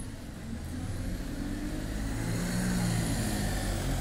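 Bus engine running close by, growing louder about a second in as it draws near.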